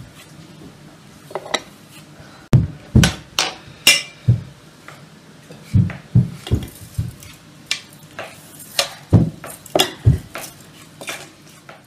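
A metal slotted spoon knocks and scrapes against a stainless-steel pan while a chopped meat filling is stirred, giving an irregular run of sharp clinks and knocks.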